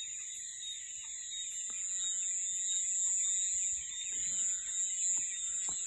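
Crickets calling at night in a steady, high-pitched chorus, with a few faint ticks.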